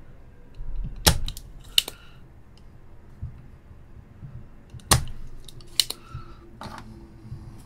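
Spring-loaded desoldering pump (solder sucker) snapping as it is cocked and fired to suck bridged solder off a surface-mount chip's pins: several sharp clicks, the loudest about five seconds in.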